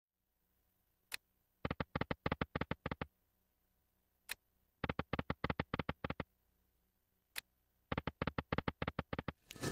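Video slot machine spin sounds, three times over: a single click as each spin starts, then a quick run of about a dozen electronic ticks as the reels turn and stop.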